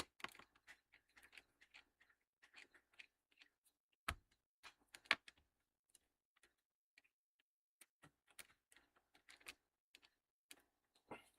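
Faint, irregular ticks and clicks of a small screwdriver and screws working on a laptop's plastic bottom panel, with two sharper clicks about four and five seconds in.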